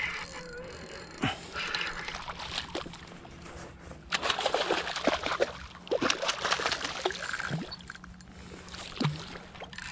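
Water splashing and sloshing as a hooked false albacore thrashes at the surface beside a kayak, in irregular bursts that are loudest from about four to seven seconds in.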